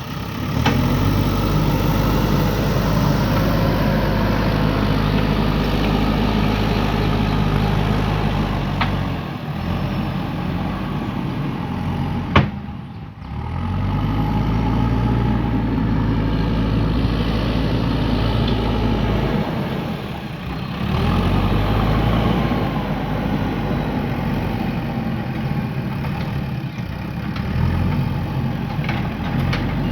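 JCB 3DX backhoe loader's diesel engine running under varying load, its pitch rising and falling as it works. A sharp click about twelve seconds in, and the engine note drops back briefly a few times.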